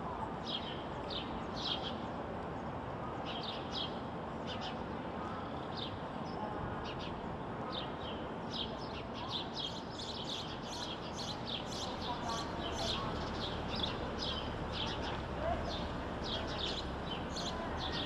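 House sparrows chirping: a string of short, sharp chirps that come more often in the second half, over steady background noise.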